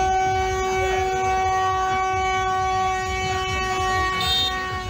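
A horn held on one long, steady note that does not change in pitch, with a brief higher squeak near the end.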